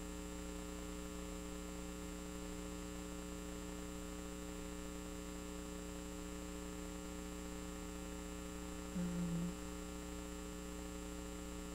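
Steady electrical mains hum with a faint high whine, running evenly through the recording. About nine seconds in comes one short, low sound lasting about half a second.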